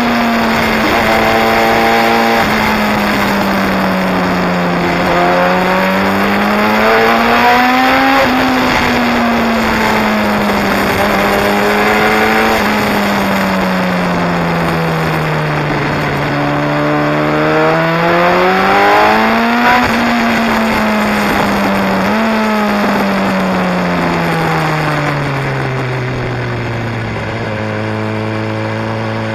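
Sport motorcycle engine and exhaust under way on twisty road, the engine note climbing under acceleration and falling off under engine braking several times, with two long rising pulls and a drop to a low steady note near the end. A steady rush of wind noise runs underneath.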